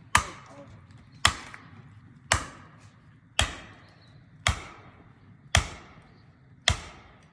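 Seven heavy, evenly paced blows on wood, about one a second, each a sharp crack with a short ringing tail, as a tool is struck into a tree during felling.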